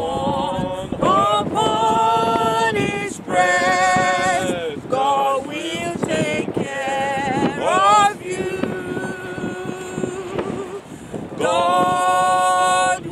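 A small group of men and women singing a hymn together without instruments, a woman's voice leading in long held notes.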